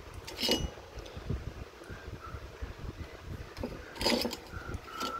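Handling noise as balance-lead wires and a lithium-ion cell pack are moved about on a particleboard bench: low knocks and rubs, with two short, louder rustling scrapes, about half a second in and about four seconds in.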